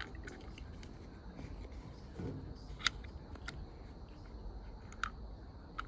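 A few faint, sharp clicks and taps, like small hardware being handled, over a low steady background hum.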